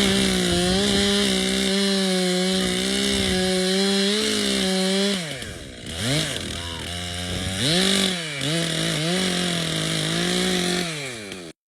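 Chainsaw felling a Christmas tree: it revs up and holds at full throttle for about five seconds, drops back, is blipped up a few times, then holds high again before winding down near the end.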